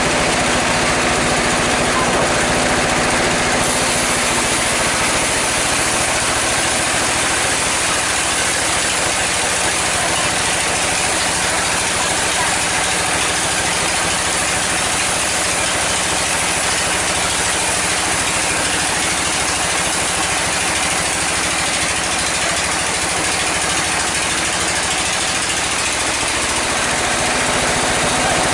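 Powered sawmill saw running and cutting lengthwise through a mahogany log as it is pushed through by hand: a loud, steady mechanical noise with a constant hum underneath.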